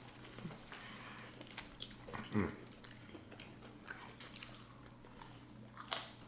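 Close-miked chewing and biting of french fries and fried fish, with scattered soft mouth clicks and smacks. A brief low falling hum about two and a half seconds in.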